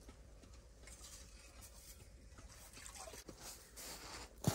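Ice-fishing skimmer scooping slush and water out of an ice hole: faint dripping and light crunching, with a sharp knock near the end.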